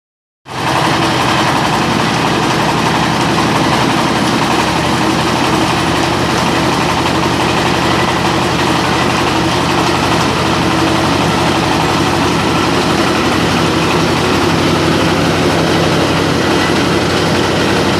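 Meatball dough mixer (fine cutter) running steadily, a continuous machine hum with an even pitch.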